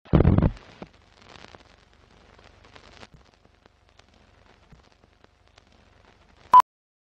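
Film-leader countdown sound effect: a loud low thump at the start, then soft crackle and scattered clicks like old film running, and a short, sharp high beep near the end.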